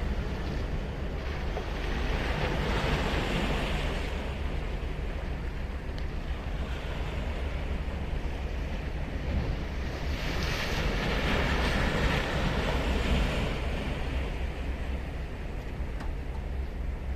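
Surf on a sandy beach: waves breaking and washing up the shore in two swells, one a few seconds in and a louder one past the middle, over a steady low rumble.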